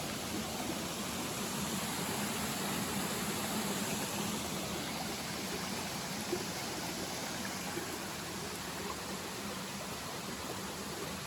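Steady rush of water from a waterfall, an even hiss without breaks.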